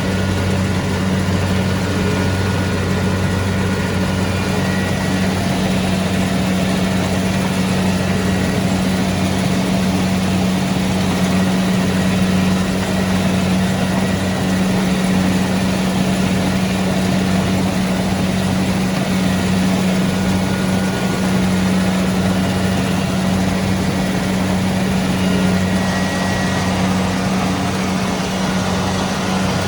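Kubota DC-70 Pro combine harvester's diesel engine running at a steady speed, with the clatter of its machinery, loud and unchanging throughout.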